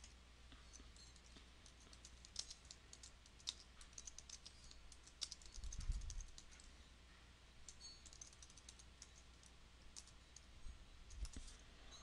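Faint computer keyboard typing: quick, irregular key clicks in short runs, with a soft low thump about six seconds in.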